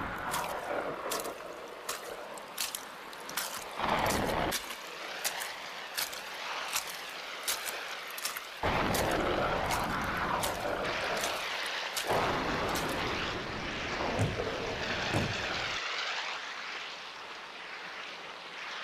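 Storm sound effects for an animated film: wind and rain, rising in several loud gusts with deep rumbles, with many sharp crackles throughout.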